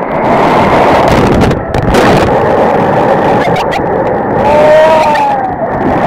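Loud rushing white water of a waterfall cascading over rock slabs, with splashing as people slide down into it. A short rising-and-falling shout comes near the end.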